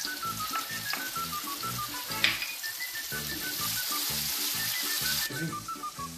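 Onion and anchovies frying in oil in a metal pan, sizzling steadily while stirred with a wooden spoon, with one sharp tap about two seconds in. The sizzle thins out near the end.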